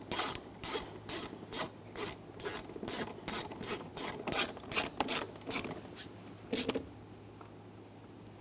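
Hand ratchet clicking about twice a second on its back-strokes as a screw is driven home in a truck's door panel. The clicking stops about six and a half seconds in, once the screw is tight.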